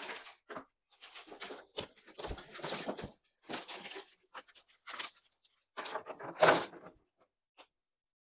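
Packaging from a bandsaw unboxing being torn and handled: a string of irregular tearing, rustling and scraping noises with short gaps, loudest a little past six seconds in.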